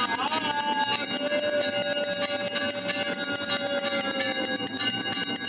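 Temple bells ringing continuously during an aarti, with a long held note that wavers at first, then holds steady for about three and a half seconds and slides down near the end.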